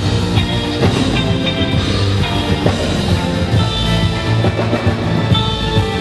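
Band music with a drum kit and electric guitar playing a steady beat.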